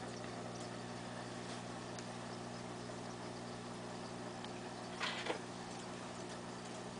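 Aquarium air pump humming steadily while air bubbles stream up from the bubbler, with faint ticks and a brief louder noise about five seconds in.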